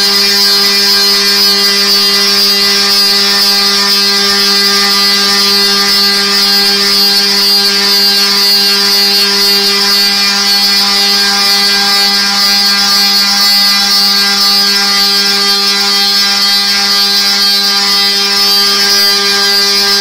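Motor drive of a near-field antenna scanner's linear-rail gantry running at constant speed: a steady, loud mechanical whine with a hiss over it, holding one pitch and cutting off suddenly at the very end.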